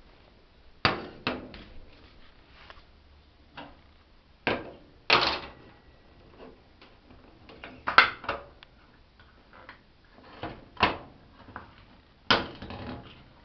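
A scattered series of sharp knocks and clicks, about a dozen in all, coming irregularly every second or so, a few with a short rattling tail.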